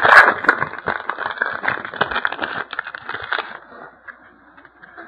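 A hockey card pack wrapper being torn open and crinkled: a dense run of crackling that dies down about three and a half seconds in, leaving faint rustling.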